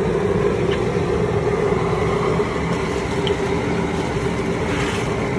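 Outdoor propane jet burner under a crawfish boil pot, running steadily with a constant low rumble and hum.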